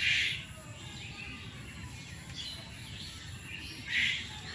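Birds calling in the background: a short scratchy call at the start and another about four seconds in, with faint chirps between.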